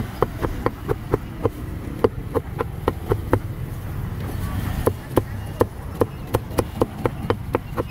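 Cleaver chopping grilled pig head on a thick round chopping block: quick, even strikes about four to five a second, stopping for over a second near the middle, then starting again.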